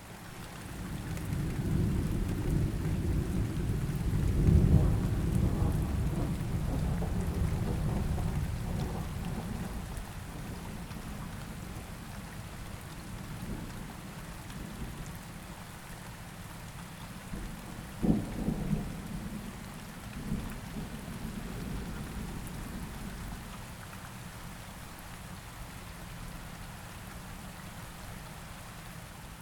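Steady rain falling, with a long low roll of thunder that swells in the first few seconds and dies away by about ten seconds in. A brief, sharper low rumble comes about eighteen seconds in, with a smaller one soon after.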